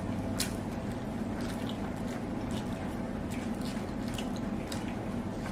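Close-up chewing and wet mouth smacks while eating a chicken leg piece, with scattered short clicks, over a steady low hum.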